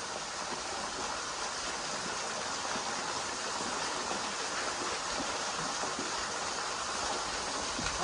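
Steady rushing of a waterfall and the stream below it: an even, unbroken wash of falling water.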